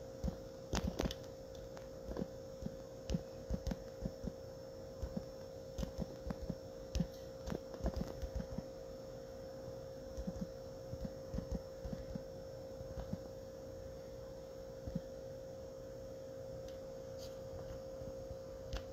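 Soft, irregular taps of fingers typing on a phone's touchscreen, picked up through the phone's own microphone over a steady faint hum. The taps come thick and fast, then thin out after about twelve seconds.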